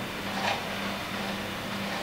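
Steady background hum and hiss of room noise, with a faint brief handling sound about half a second in.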